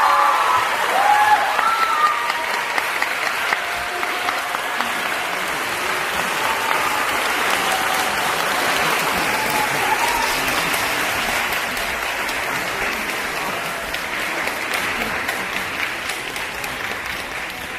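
Audience applauding steadily in a concert hall, with a few shouted voices, likely cheers, rising over the clapping in the first few seconds and again near the middle; the applause fades slightly toward the end.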